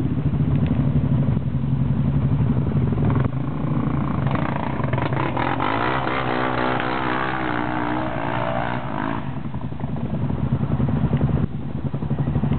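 ATV (quad bike) engine running steadily, then about four seconds in revving hard with its pitch climbing for around five seconds as the quad climbs out of a muddy gully, before dropping back to a steady lower note.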